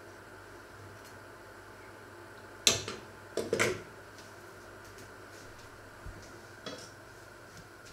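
A lid put onto a small cooking pot: one sharp clank, then a quick rattle of clinks as it settles, over a steady low hum. A couple of faint knocks follow near the end.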